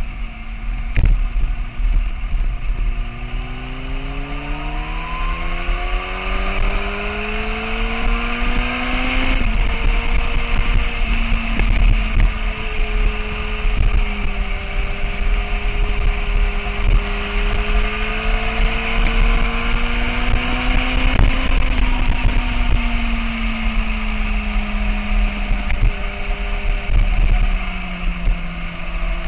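Sport motorcycle engine under way: revs climb for several seconds, drop suddenly at an upshift about nine seconds in, creep up again, then fall away in the last third. A heavy rumble of wind on the microphone runs beneath it.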